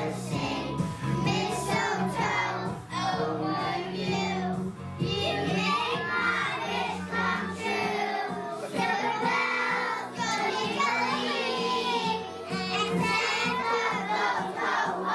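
A group of young children singing together over instrumental accompaniment.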